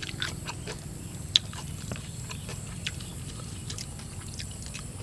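Close-up eating sounds: chewing spicy stir-fried eel, with scattered small wet clicks and one sharper click about a second and a half in.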